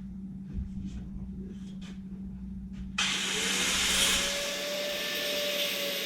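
A high-speed rotary tool, used to take a little metal off a part so that it fits, starts suddenly about three seconds in. It spins up with a rising whine that levels off, under a loud steady hiss. Before it starts there is only a steady low hum.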